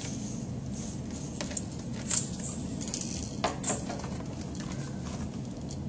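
Handling noises from a plastic toy egg being pulled from a cloth bag and fiddled with on a tabletop: a soft rustle, then a few short plastic clicks and knocks, the sharpest about two seconds and three and a half seconds in, over a steady low room hum.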